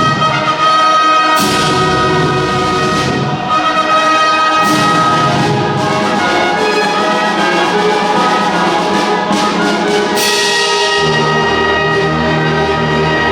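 Orchestral music led by brass, playing long held chords with a sustained high note through the first half.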